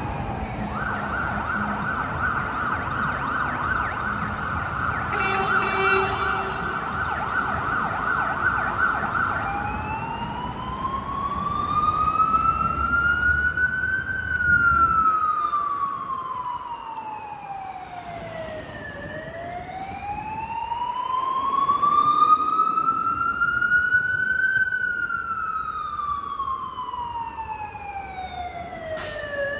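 Emergency vehicle siren on a city street: a fast warbling tone for the first nine seconds or so, then a slow wail that rises and falls twice, each sweep taking about five seconds, over the rumble of traffic.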